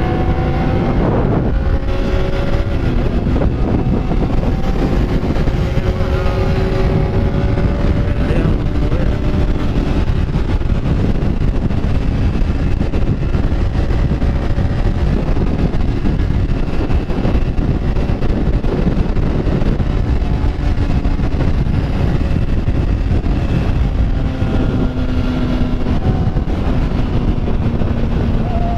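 Motorcycle engine running while riding, its pitch climbing in the first couple of seconds and then holding fairly steady, under heavy wind rush on the microphone.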